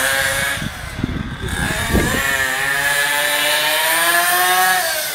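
Radio-controlled buggy's motor running at high speed, its pitch climbing about two seconds in, holding, then falling away near the end. A few low knocks come in the first two seconds.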